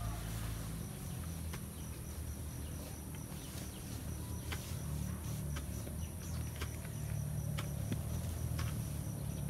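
Insects trilling steadily in a thin, high tone over a low rumble, with scattered light clicks.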